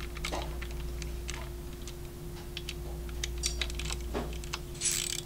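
Hand ratchet clicking in short irregular runs while running bolts in on an S&S cam plate, over a steady hum.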